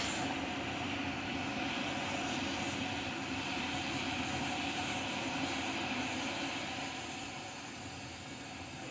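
Water being run into a floor drain line to flush it for a camera inspection, a steady rushing noise that eases off slightly near the end.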